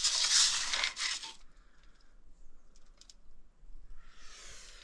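A tape measure's blade being handled and drawn up out of a well casing, rubbing and scraping: a louder stretch at the start, a few light clicks about three seconds in, and a softer rub near the end.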